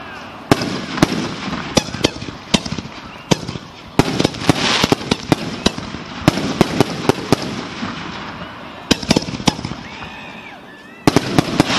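Fireworks finale: aerial shells bursting in quick succession, sharp bangs several a second, with a spell of dense crackling about four seconds in. A short lull near the end, then a fresh volley of bangs.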